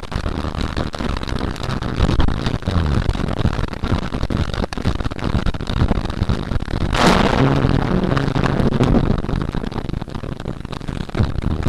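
Thunderstorm: dense crackling storm noise on the microphone, with a loud thunderclap about seven seconds in.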